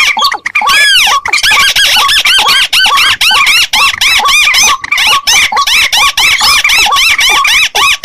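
Bird-lure recording of paddy-field birds calling: a fast, loud run of repeated rising-and-falling call notes, several a second, with calls overlapping one another.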